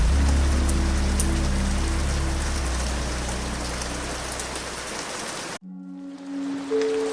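Steady rain sound over a low, sustained ambient music pad, both fading slowly and cutting off suddenly about five and a half seconds in. Soft ambient music with held tones starts right after.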